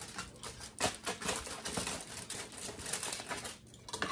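A kitchen knife cutting through a tray of faikakai ngou'a pudding: a quick, irregular run of light clicks and taps as the blade meets the tray and foil, easing off shortly before the end.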